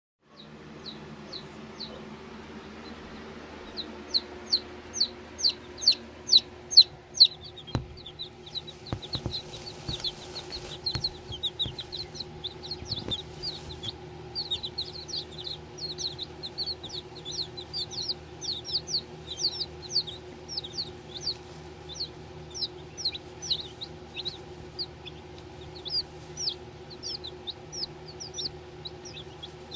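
Baby chicks peeping: rapid runs of short, high, downward-sliding peeps that start about four seconds in, over a steady low hum. A few soft knocks come in the middle.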